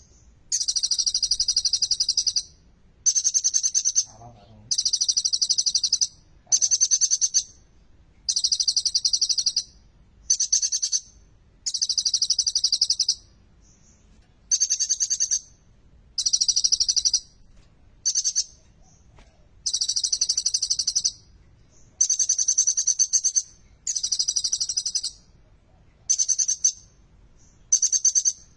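Kolibri ninja (Van Hasselt's sunbird) singing: rapid, high, trilled phrases of about a second each, repeated over and over with short pauses between them.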